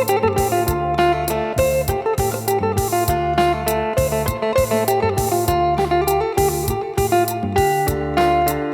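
Phin (Isan lute) plucking a quick melody over a steady low bass line and a fast, even beat, as a sound check of the instrument.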